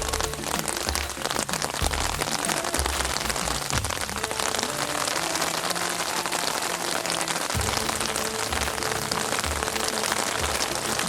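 Heavy rain falling steadily, with a song's low held notes playing faintly underneath.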